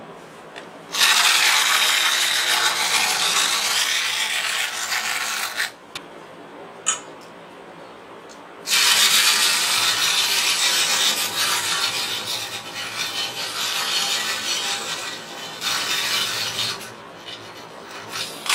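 A small toy octopus's mechanism running with a loud, rough, whirring noise as it moves about. It runs in two long stretches: from about a second in to about six seconds, and again from about nine seconds to seventeen. A single click falls in the quiet gap between them.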